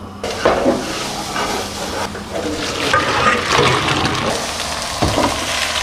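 Cooked penne and its boiling water poured from a pot into a colander in a stainless steel sink: a steady rush of water splashing and draining.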